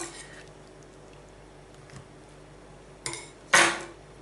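Kitchen knife and small ceramic dish clattering on a worktop: a short knock at the start, then two quick clatters about three seconds in, the second the loudest.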